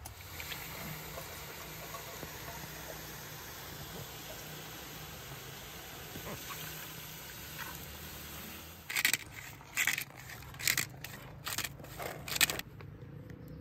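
Water and chicken simmering in a cast-iron Dutch oven over coals, a steady hiss. About nine seconds in come about six sharp, brief noises a little under a second apart, louder than the simmering.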